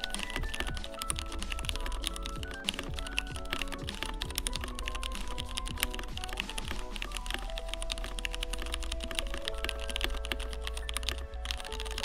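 Steady typing on a Leopold FC980M PD mechanical keyboard with Cherry MX Black switches, heavy linear switches with no click of their own, so each keystroke is just the key bottoming out. The typing stops near the end, with background music playing over it.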